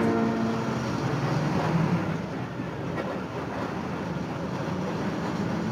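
Small school bus's engine running as the bus drives slowly forward and turns, a steady low rumble with road noise.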